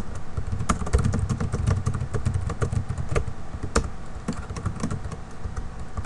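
Computer keyboard being typed on: quick, irregular key clicks, a few louder keystrokes standing out, over a low rumble.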